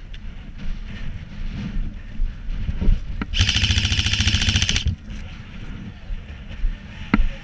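Airsoft rifle firing one rapid full-auto burst of about a second and a half, a fast even rattle of shots, with scattered knocks and thumps before and after it.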